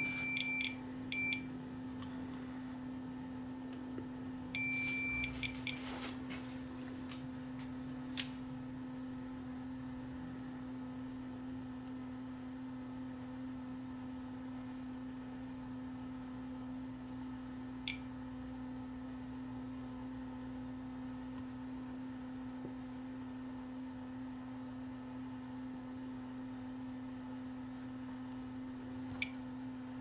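Digital multimeter beeping as its min-max recording mode is set: a few short beeps in the first second and a half, and a longer beep about five seconds in. Under it runs a steady low hum, with a few faint clicks later on.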